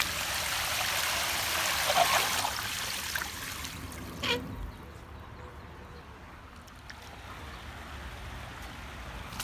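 Irrigation water rushing out of an underground flood-irrigation valve, then cut off suddenly about four and a half seconds in as the valve is closed, leaving a quiet trickle.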